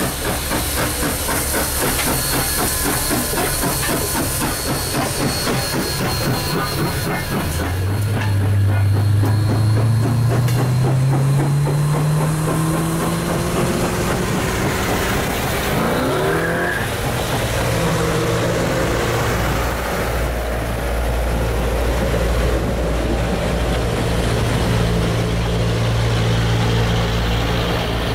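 A 2-8-0 steam locomotive passing close by, its exhaust chuffing rapidly over a steam hiss. After about eight seconds a low tone rises in pitch, and the passenger cars roll past with a steady low hum and rumble.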